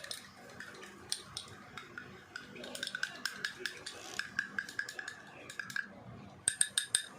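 A spoon stirring a thick Cerelac-and-water mixture in a small container, clicking against the sides again and again with a light ringing note. Near the end comes a quick cluster of louder taps.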